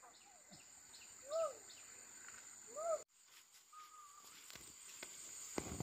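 Faint outdoor ambience: a steady high insect drone, with two short arching calls about a second and a half apart and a brief level whistled note a little later.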